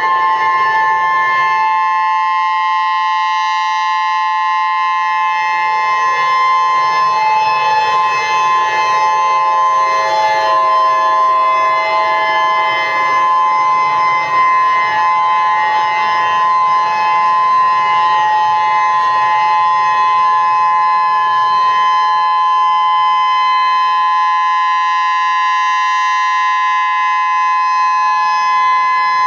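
Emergency alert system alarm: a loud, continuous two-note tone held steady without a break, with fainter wavering tones under it through the middle.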